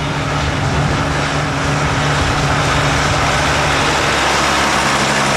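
Farm tractor's diesel engine running steadily as the tractor, pulling a tank trailer, drives along a dirt track towards the listener. It grows louder over the first second, then holds an even hum.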